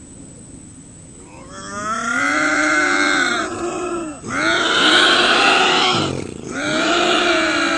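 Bobcat yowls: three long, wavering calls, each two to three seconds, with short breaks between them. They begin about a second and a half in.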